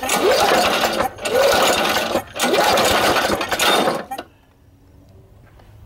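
Lawn mower engine fuelled with washer fluid being cranked on its recoil pull-starter, several pulls in a row, each about a second of cranking with a rising whir, without the engine catching. It stops abruptly about four seconds in, where the engine backfires and the starter rope tears off.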